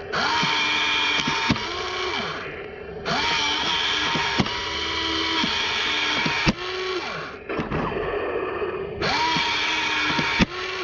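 Heng Long 1/16 Walker Bulldog RC tank's electric drive motors and gearboxes running in short bursts, each spin-up and stop heard as a whine rising and falling in pitch, over a rattling noise during three longer runs. This is the tank being test-run on its replacement gearboxes.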